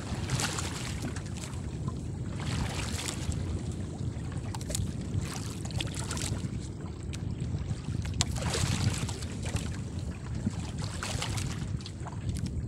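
Wind buffeting the microphone, a steady low rumble, over sea water washing against a small boat's hull, with a few faint clicks.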